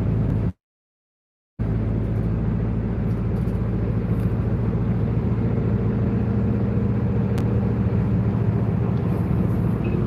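Bus engine and road noise heard from inside the passenger cabin: a steady low drone with a hum. It drops out completely for about a second near the start, then runs on unchanged.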